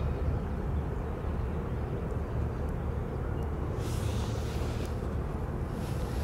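Steady low engine rumble of a passing inland motor cargo ship, with a short hiss about four seconds in.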